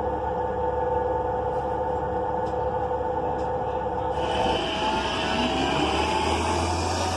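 Transit bus heard from inside the cabin: a steady tonal hum from the Cummins Westport L9N natural-gas engine and Allison B400R transmission. About four seconds in, a hiss comes in suddenly, and the drivetrain whine rises in pitch as the bus gets under way.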